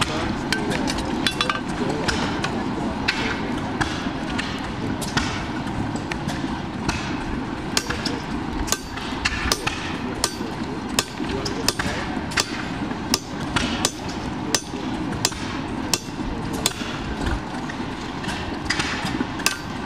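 A farrier's hammer strikes a red-hot draft horseshoe on an anvil while the shoe is being forged to shape. The blows are sharp and metallic, coming at an uneven pace of about one or two a second.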